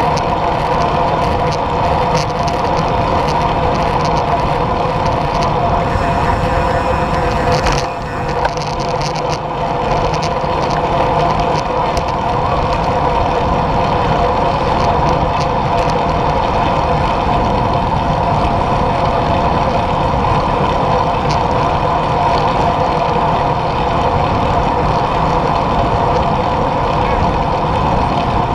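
Steady wind rush and tyre-on-asphalt road noise picked up by a handlebar-mounted camera on a moving road bike, with a constant hum running through it. The noise briefly eases about eight seconds in.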